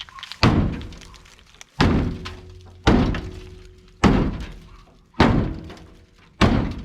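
Heavy blows on a vehicle's sheet-metal body, six hits at a steady pace about one every second and a bit, each with a short metallic ring.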